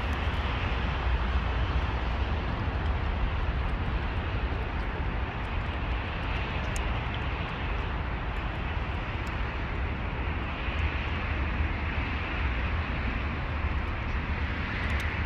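Steady outdoor background noise: a constant low rumble with an even hiss above it and no meowing.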